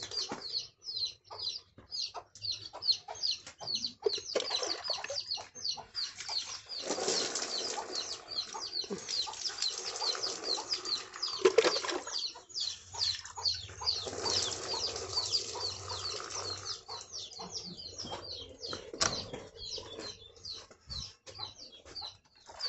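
Water scooped from a trough with a plastic mug and poured over a cow, splashing in bursts, with a few knocks of the mug. Small birds chirp rapidly and without a break throughout.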